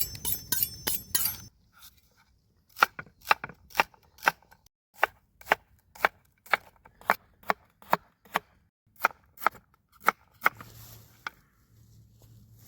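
Knife chopping vegetables on a cutting board: steady single knocks, about two a second, after a short burst of quicker clattering at the start.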